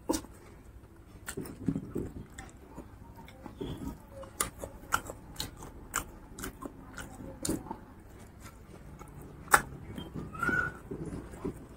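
Close-miked chewing of pork curry and rice, with wet mouth clicks coming irregularly, several a second.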